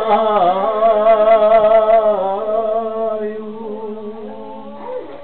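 A man singing a long, drawn-out note with a strong wavering vibrato, in the manner of Serbian folk song. About two seconds in, his voice drops to a lower, steadier note and fades, over a steady low accompaniment tone.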